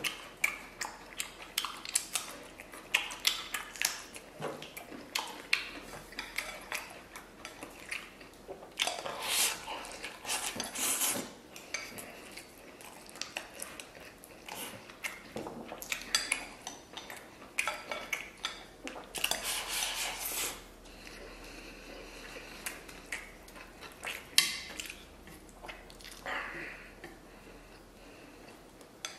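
Wooden chopsticks clicking and scraping against a ceramic rice bowl and plate while eating rice and braised lamb, in many quick, irregular taps.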